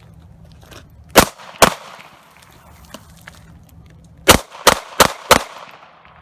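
Ruger American 9mm pistol firing six shots while fouled with mud, dip tobacco and beer, still cycling: two shots about half a second apart, a pause of about two and a half seconds, then four quick shots.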